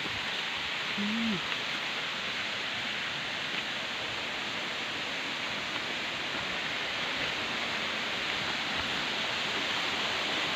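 Steady rush of a waterfall and its stream, an even hiss that grows a little louder near the end.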